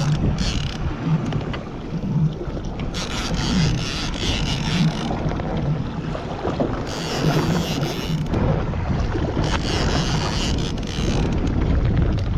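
A fishing boat's motor running, with wind buffeting the microphone. Four separate hissing bursts of about one to two seconds each rise over it.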